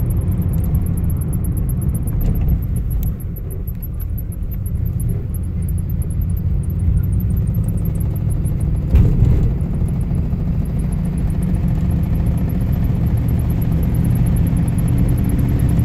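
1954 Ford Crestline driving, heard from inside the cabin: a steady low rumble of engine and road noise. It eases slightly about three seconds in and then builds again, with a brief thump about nine seconds in.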